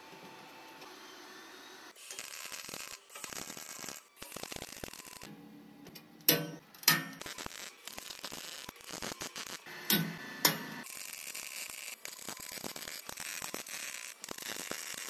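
MIG welder laying stitch welds along the seams of thin sheet steel: a crackling, sizzling arc in several bursts, starting about two seconds in. A few sharp, ringing metal knocks cut through, twice near the middle and twice more a few seconds later.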